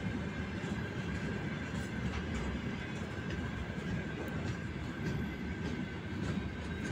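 Freight train of open-top gondola wagons rolling past, a steady low rumble of wheels on rail with a faint steady high tone running over it.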